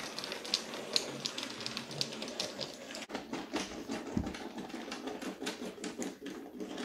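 Small 00 gauge model wagons clicking over rail joints and points as a Hornby Ruston shunter pushes them along the track: rapid, irregular clicks over a steady hum.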